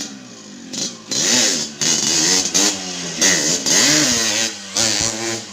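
Two-stroke single-cylinder Yamaha RX-King engine in a Honda C70 motorcycle being revved in quick throttle blips, its pitch climbing and dropping about five or six times in a row.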